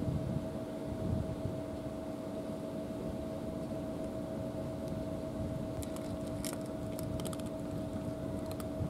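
Two cats crunching dry cat food from small trays, heard as a scatter of sharp crunchy clicks from about six seconds in. Under it a steady mechanical hum with a constant tone.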